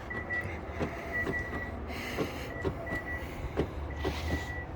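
2013 Hyundai Santa Fe's door lock actuators clicking over and over, about two clicks a second, as the locks cycle between lock and unlock by themselves with nobody pressing the fob. A high beeping tone sounds on and off over the clicks; the fault stops only once the fob is taken 3+ feet away.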